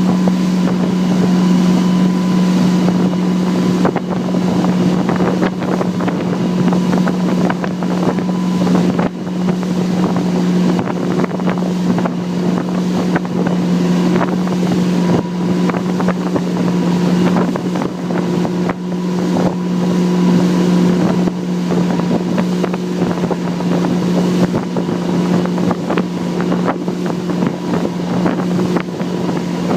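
Motorboat engine running at a steady pitch throughout, with wind buffeting the microphone.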